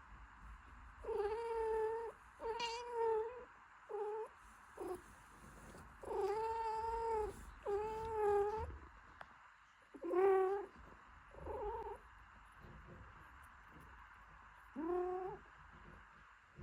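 A cat meowing repeatedly, about eight drawn-out meows of half a second to a second each with pauses between; the last one, near the end, rises in pitch.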